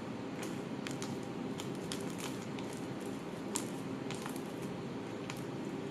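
Homemade slime with iron filings mixed in being handled and squeezed, giving small irregular clicks and squishes over a steady low room hum.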